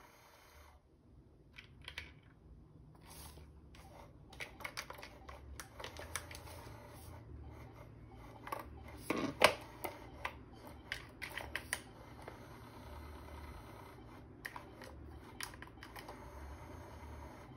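Irregular plastic clicks and taps from cats pawing and nosing at an electronic cat toy, with one louder knock about nine seconds in, over a low motor hum from the toy that starts and stops.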